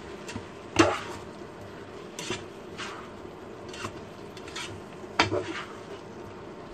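A spatula scraping and knocking against a pot while stirring and turning cooked cabbage: a handful of separate scrapes, the loudest about a second in and a quick cluster around five seconds, over a steady low hum.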